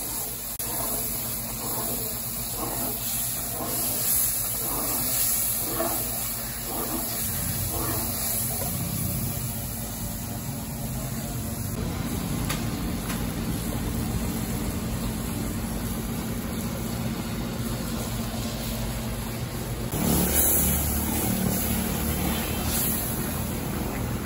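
Meat and stock boiling hard and hissing in a large pot for Kabuli pulao. From about seven seconds in, a steady low hum runs underneath, swelling briefly near the end.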